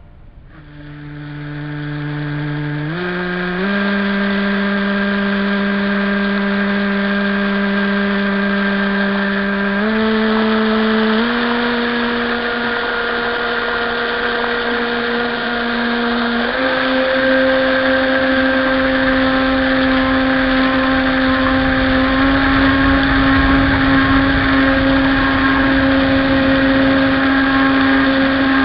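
RC jet boat's motor and jet drive running steadily, heard from on board over the rush of water. Its whine steps up in pitch a few times, about 3, 10, 11 and 16 seconds in, as the throttle is raised.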